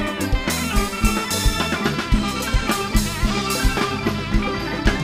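Nang talung shadow-puppet troupe's band playing an interlude: a steady drum beat under a melody.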